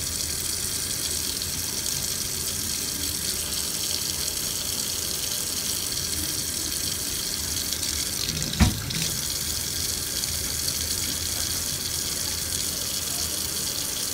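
Tap water running steadily into a sink, an even hiss, with one sharp knock about eight and a half seconds in.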